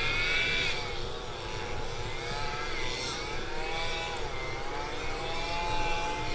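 Continuous motor-engine drone with several tones slowly rising and falling in pitch, over a low rumble.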